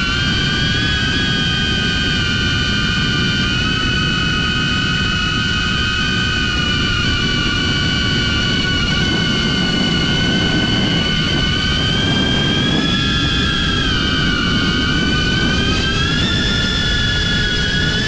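DJI Avata FPV drone with Axisflying C175 motors in flight, its motors and propellers giving a steady high whine that rises a little in pitch about thirteen and again about sixteen seconds in. A rumble of strong wind lies under it.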